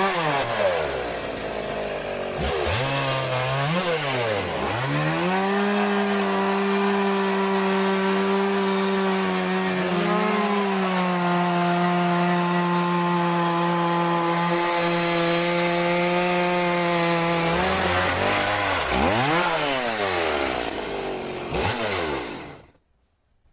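Gasoline chainsaw in a homemade mill guide slabbing a log. The engine revs up and down, then holds a steady high speed for about twelve seconds under cutting load. It revs up and down again and cuts off suddenly near the end.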